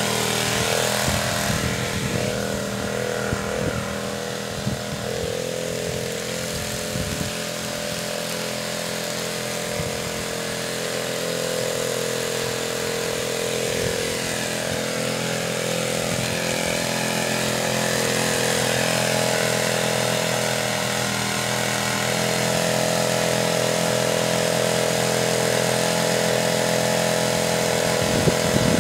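Small boat engine running steadily, driving an improvised water pump.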